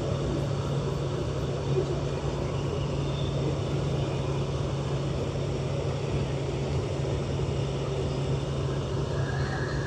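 The 5.7-litre V8 of a 2020 Toyota Tundra idling steadily on freshly changed oil, a constant low hum.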